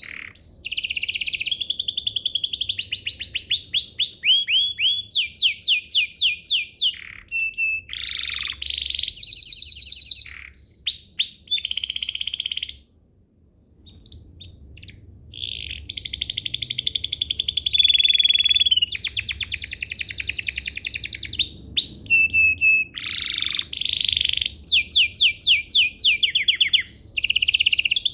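Domestic canary singing long runs of fast repeated trill notes and rolls, with a short pause about halfway through before the song starts again.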